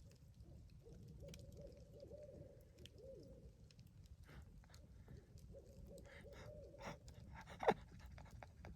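Barred owls hooting faintly in two drawn-out, wavering calls, one starting about a second in and one midway through. A sharp click near the end is the loudest single sound.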